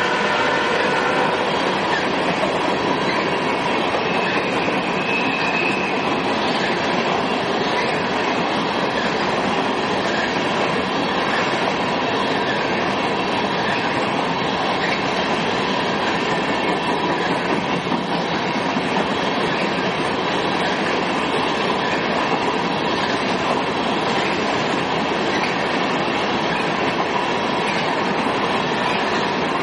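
Freight train of open-top hopper cars rolling steadily past: wheels clattering over rail joints, with a faint high wheel squeal at times on the curve.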